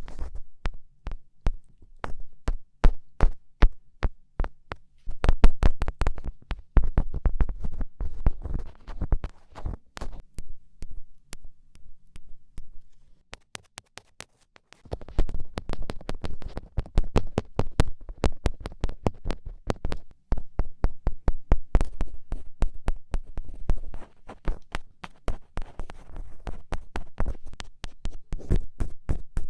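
Rapid fingertip poking taps: sharp clicks several a second over dull low thumps, in uneven runs, with a brief pause about halfway through.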